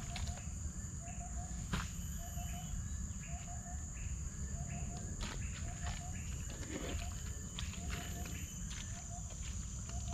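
Outdoor ambience: a steady high insect drone and a short call repeating about once a second, over a low rumble, with a few sharp knocks.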